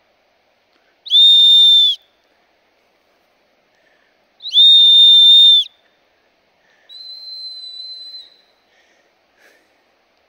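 Hiker's whistle blown to scare off bears: two loud, steady, shrill blasts of about a second each, then a fainter one.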